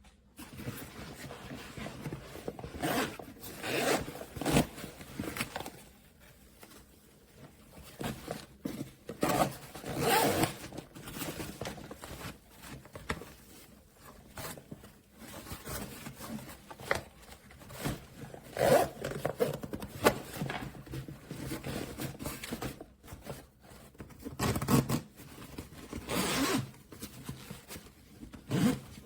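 Zipper on a DBTAC two-pistol gun case bag being pulled in a series of short runs, in clusters, with scraping handling noise between them.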